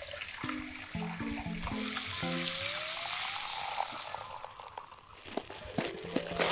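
Water running from a tap into an earthenware bowl, its pitch rising as the bowl fills, then the water poured into a hot wok of beef. A ramyun packet crinkles near the end, over soft background music.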